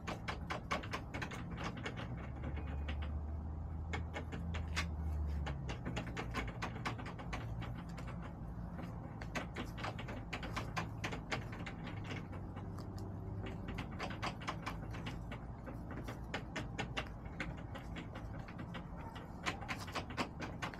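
Hens pecking: a fast, irregular run of sharp taps and clicks of beaks on hard surfaces, over a low rumble that is loudest for a few seconds near the start.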